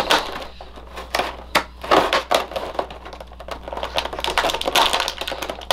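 Hard plastic packaging tray crackling and clicking as action-figure accessories are pried out of it by hand: an irregular run of sharp clicks and rustles.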